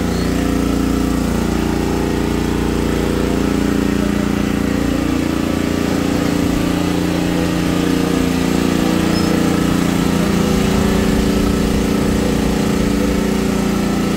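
Predator 6500 portable generator's engine running at a steady pitch.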